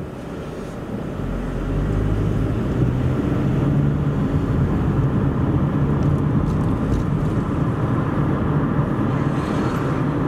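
A car driving on a highway: engine hum and road noise get louder and rise in pitch as it pulls away or speeds up about a second or two in, then run steady at cruising speed.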